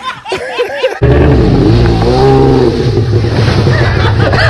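Remote-control model jet ski's motor running loud, cutting in abruptly about a second in, with its pitch rising and falling once as it revs.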